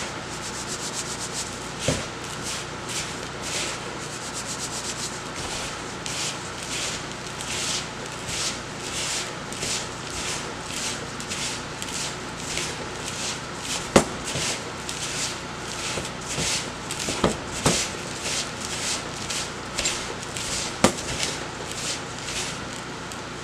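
Hands in nitrile gloves rubbing and kneading a damp bath-salt mixture in a plastic mixing bowl: a gritty scratching in regular strokes, about two a second, with a few sharp knocks along the way.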